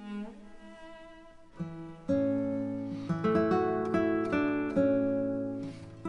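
Background music of plucked string notes, growing louder and fuller about two seconds in as a low held bass line joins.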